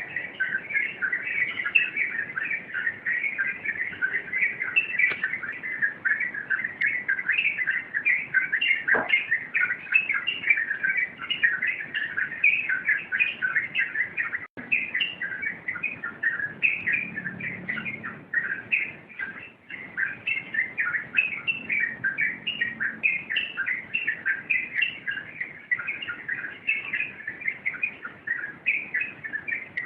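Yellow-vented bulbuls (trucukan) singing in a dense, continuous stream of overlapping chirps, the crowded 'rompelan' chatter of several birds at once.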